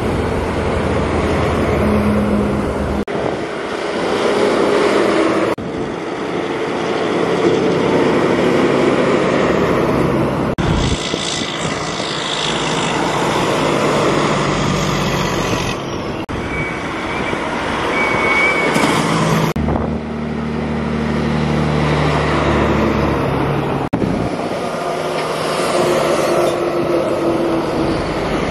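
Heavy trucks' engines running and passing, loud and continuous, with the sound changing abruptly several times as one short clip cuts to the next.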